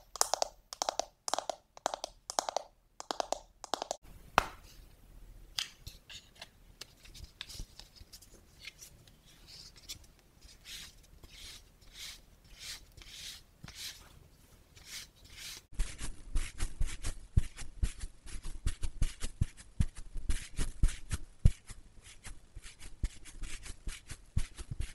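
ASMR makeup sounds while setting makeup with a NARS pressed-powder compact. First come fingernails tapping on the plastic compact case in a steady rhythm. Then a powder puff rubs and presses into the pressed powder, softer and scratchy. From about two-thirds of the way in, the puff pats quickly and repeatedly against the face, and this is the loudest part.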